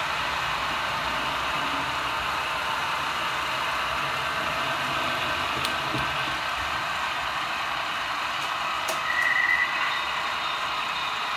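Märklin HO-scale model train running on the layout's three-rail track, a steady whirring of wheels and motor. A short high beep sounds about nine seconds in.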